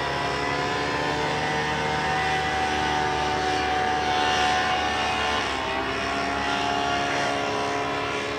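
Powered paraglider's paramotor engine and propeller droning steadily, its pitch dipping slightly and recovering a little past the middle.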